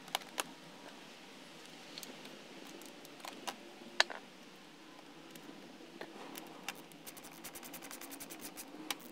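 Hand tools working the fasteners on motorcycle fairing panels: scattered small clicks and taps of metal on bolts and plastic, the sharpest about four seconds in. Near the end a fast, even run of clicks begins as a driver is worked on a lower fairing bolt.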